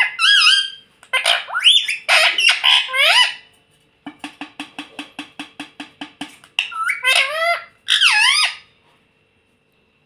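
Indian ringneck parakeet calling: several loud calls that swoop up and down in pitch, then a quick run of short clicking notes, about six a second for two seconds, then more calls. The calls stop about a second before the end.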